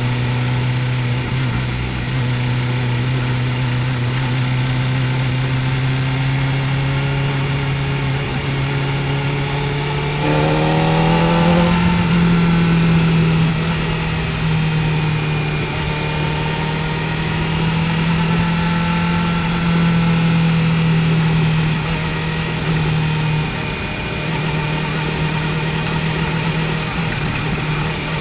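Kawasaki Ninja ZX-4R's inline-four engine running steadily while riding, its pitch climbing quickly about ten seconds in and then holding at the higher pitch.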